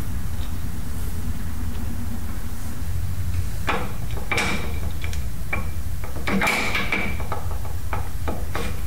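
Open-end wrench clicking and clinking against a hydraulic line fitting as it is tightened, a scatter of sharp metallic taps from about halfway, two of them with a brief ringing tone. Under it runs a steady low hum.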